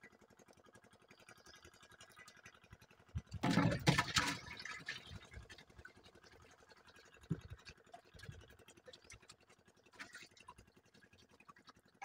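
Mesh fish trap being handled and shaken out in a wooden boat: a loud rustling clatter lasting about a second and a half, starting about three seconds in, then a few lighter knocks.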